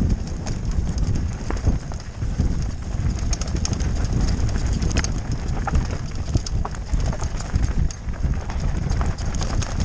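Electric mountain bike riding fast down a rocky dirt trail: a continuous low rumble of wind buffeting and tyres on the ground, with quick irregular rattles and clicks from the bike's chain and frame over the bumps.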